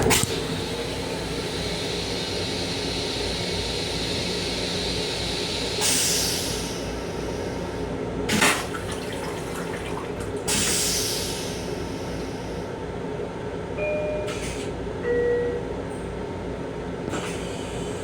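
Restroom toilet aboard a Long Island Rail Road M7 electric railcar flushing: several short bursts of hissing water and air over the steady rumble of the moving train. Two brief beeps come near the end.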